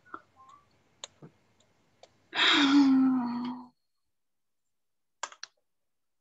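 A few sharp clicks, then about two seconds in a drawn-out vocal sound of about a second and a half, held on one pitch and dipping slightly at the end. A short cluster of clicks comes near the end.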